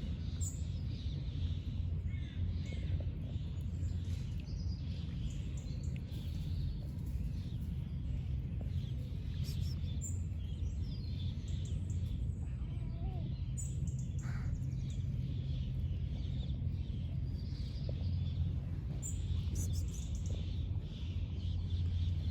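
Outdoor street background: a steady low rumble, with small birds chirping here and there over it.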